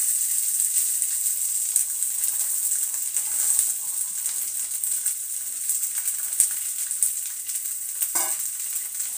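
Chopped cluster beans sizzling in hot oil in a frying pan, a steady hiss dotted with sharp crackles and pops as the moist beans spatter.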